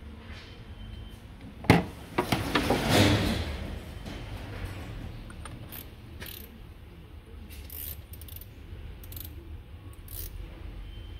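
Hand tools and metal parts clinking against the engine: a sharp click about two seconds in, then a second or so of metallic clatter and clicks, then a few faint scattered clicks over a low background hum.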